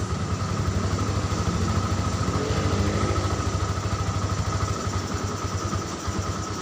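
Yamaha Byson's single-cylinder four-stroke engine idling with a slightly uneven beat, a faint rise in pitch near the middle. It is coughing (batuk), a carburettor fault that a new carburettor is meant to cure.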